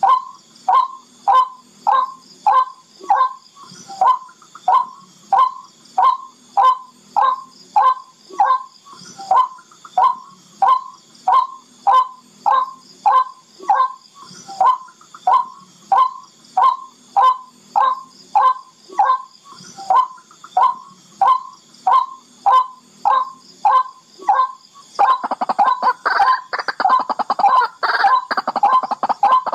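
Barred rail (tikling) calling: a long, even series of short notes, each sliding downward, about one and a half a second. About 25 seconds in the calls break into a fast, dense chatter.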